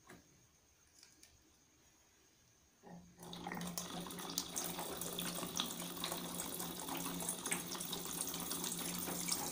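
Water pouring from the tap of a large bottled-water jug into a stainless-steel pot, starting about three seconds in after a few faint clicks, and running steadily with a steady low note under the splashing.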